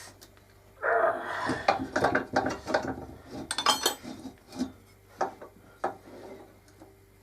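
Irregular knocks, scrapes and clinks of metal tools and wood being handled at a wood lathe, with a brief metallic ring about three and a half seconds in.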